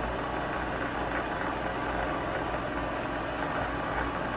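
Vevor MX 400 mini lathe running steadily at about 500–600 RPM, its motor and spindle giving a constant low hum with a thin high whine over it.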